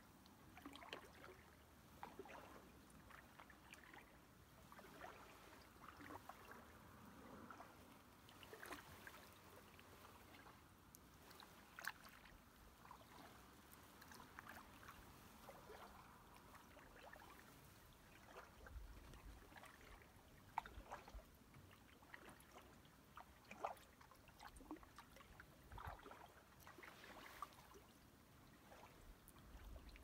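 Faint sounds of a canoe being paddled on calm water: soft paddle dips and water trickling and dripping off the blade, with a few small sharp ticks.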